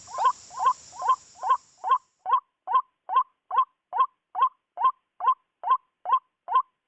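White-breasted waterhen giving its harsh, repeated 'kwak' call in a steady, even rhythm of about two and a half calls a second. A high insect-like hiss behind the calls fades out about two seconds in.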